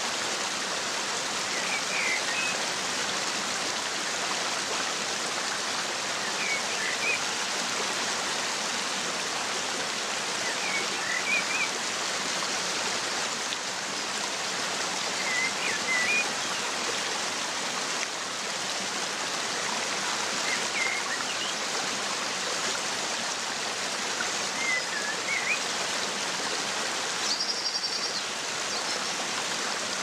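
Steady rushing water of a waterfall. A small bird gives a short chirping call about every four to five seconds, with a brief higher call near the end.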